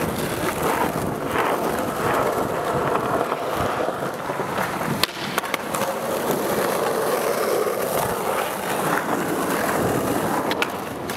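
Skateboard wheels rolling on smooth concrete, a steady rumble, with a sharp clack of the board about five seconds in and a few more clacks near the end.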